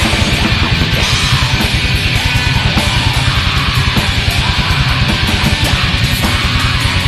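Black metal music: dense distorted electric guitars over fast, steady drumming, with no let-up.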